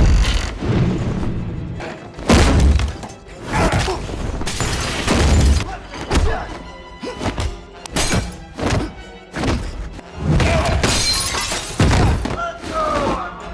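Martial-arts film fight soundtrack: music under a rapid run of strike impacts and heavy thuds, with things smashing.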